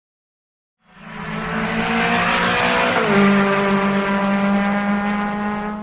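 Car engine sound effect for a logo intro, holding a steady pitch over a hiss. It fades in about a second in, its pitch dips slightly about three seconds in, and it fades out at the end.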